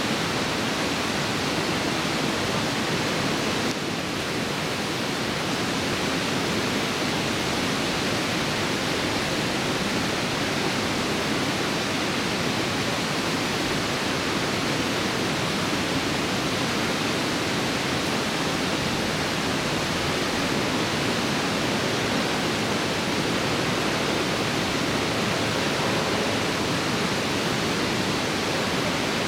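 Steady rush of river water, a constant even roar with no other sound standing out, dipping slightly about four seconds in.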